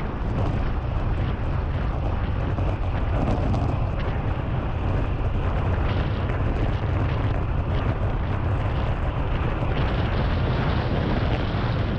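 Steady wind noise on a handlebar-mounted action camera's microphone as a road bike rides at about 50–55 km/h.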